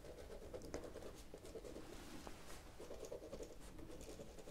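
Pen writing on notebook paper: faint scratching strokes in several short runs, with small ticks of the pen tip.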